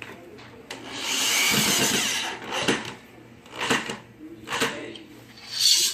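Power drill driving screws into desk panels: one run of about a second and a half, then four short bursts.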